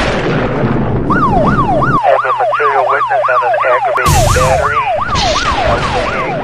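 Electronic yelp-style siren, its pitch sweeping up and down about three times a second, starting about a second in. Loud whooshing noise bursts come at the start and again about four seconds in.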